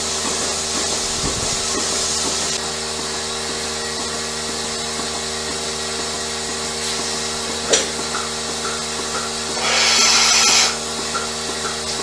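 Machinery running steadily with a constant hum, a single sharp click about two-thirds of the way through, and a loud burst of hissing for about a second near the end.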